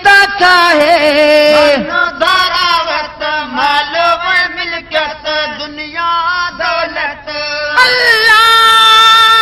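Devotional song: sung chanting in a Sufi-style melody, with a long held note near the end.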